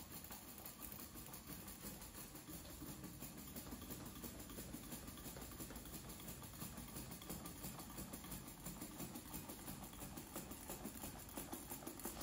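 Small quadruped robot dog walking on a smooth hard floor: a quick, steady patter of its feet tapping.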